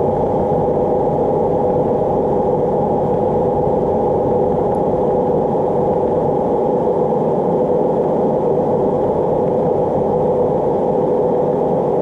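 A washing machine's electric motor, driven by a frequency converter, running the drum steadily. It makes a constant whine of two held tones over a loud, even rushing noise.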